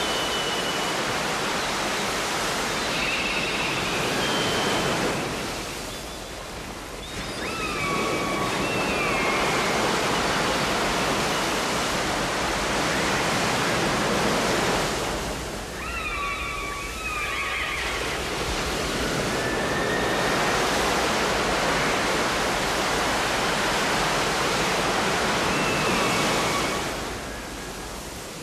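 Steady rushing water noise, much like surf. It dips in level three times, with a few short high chirps over it.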